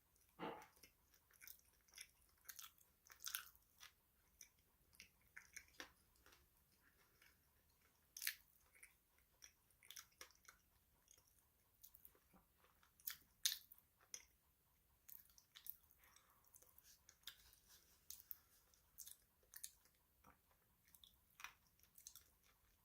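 Close-up crunchy chewing: a person biting into and chewing crisp food, with many short, irregular crackles.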